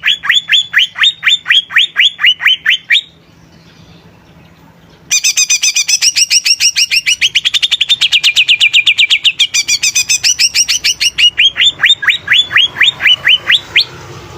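Cucak ijo (leafbird) singing fast runs of short rising whistled notes, several a second. The song breaks off for about two seconds, starts again abruptly with a longer, faster run, and stops shortly before the end.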